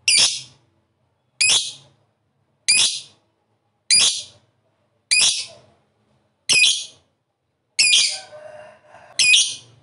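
Lovebird giving a series of eight short, shrill calls, about one every second and a quarter, each cutting in sharply and fading quickly. Softer, lower chattering comes between the last two.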